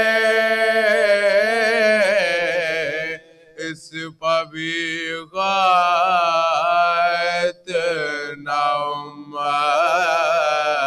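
Unaccompanied male voices reciting a marsiya, an Urdu elegy, in long held, wavering melodic phrases, breaking off briefly about three seconds in and again near eight seconds.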